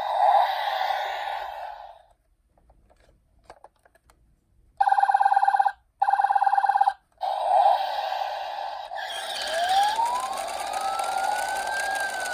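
Toy minicar emergency vehicles' electronic siren sounds: a ringing tone that fades out, a short lull with small clicks, two steady one-second beeps, then ringing again with a wailing siren that rises in pitch from about nine seconds in and starts to fall near the end.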